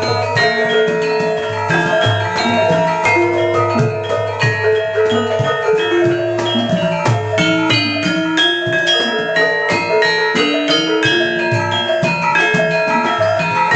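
Javanese gamelan ensemble playing: bronze-keyed saron metallophones struck with mallets in a fast, dense rhythm of ringing notes over steady lower tones. The set is freshly tuned by its maker.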